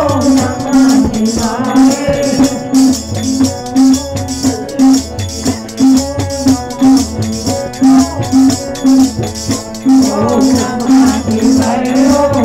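Devotional bhajan: a harmonium playing sustained chords over a low beat about twice a second and fast, dense rattling percussion, with a man singing at the start and again in the last few seconds.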